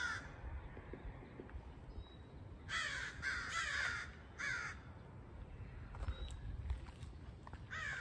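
A crow cawing repeatedly: a quick run of three harsh caws about three seconds in, and another caw starting near the end.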